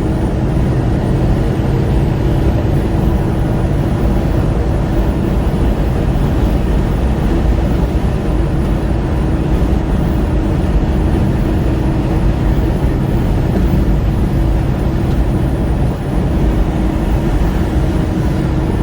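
Steady road and engine noise of a vehicle driving at highway speed, with a constant engine drone under the rush of tyres and wind.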